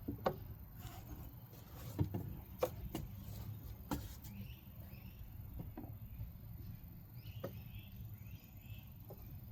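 Motor oil being poured into the engine's filler, with a few light clicks and knocks from handling the bottle, over a low steady hum and faint bird chirps.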